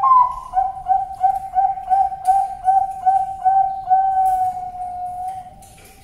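Male Bangkok zebra dove (perkutut) singing: a high opening note, then a quick run of about ten even coos, roughly three a second, ending in a long, slightly falling note that fades.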